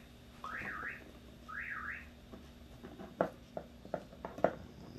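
A high warbling chirp that rises, falls and rises again, repeating about once a second, twice in the first two seconds. After that comes a run of sharp clicks and taps, like small parts being handled on a bench.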